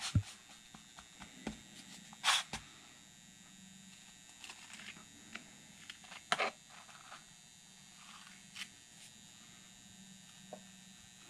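A thin metal pick scratching and scraping in Petrobond casting sand around a plastic pattern, in short scattered strokes, the loudest about two seconds in and again about six seconds in. A faint steady electrical hum underneath.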